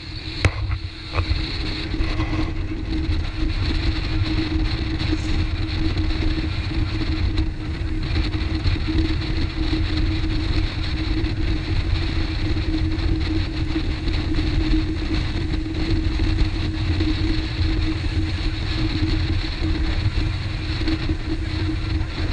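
Motorboat running at speed on a fast river: a steady engine drone over a low rumble and the rush of water against the hull. A few sharp knocks come in the first second.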